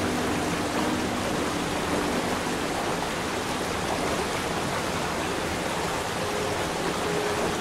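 Steady rush of a waterfall: an even hiss of falling water with no breaks. Faint sustained music notes sit under it in the first couple of seconds and again near the end.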